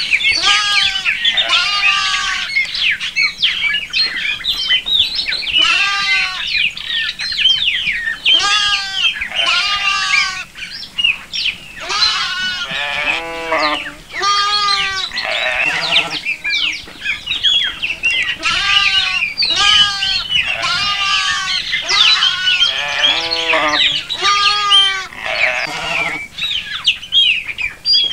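A flock of domestic sheep bleating, call after call every second or two, with many voices overlapping.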